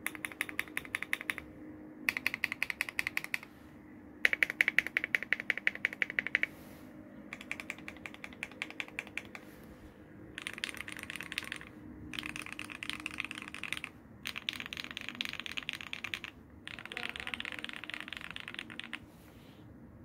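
Tofu60 mechanical keyboard, o-ring mounted with lubed Gateron CJ linear switches, typed on fast in about eight short runs of keystrokes with brief pauses between; the loudest run comes about four seconds in, and the later runs are softer and more closely packed.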